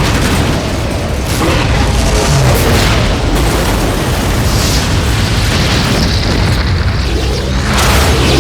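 Film sound effects of a missile strike: loud, sustained explosion booms and rumble, with a fresh surge near the end, over an orchestral film score.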